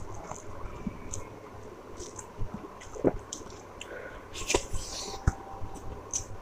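Close-up eating sounds: wet, squishy chewing of rice and curry, with scattered small clicks and mouth noises.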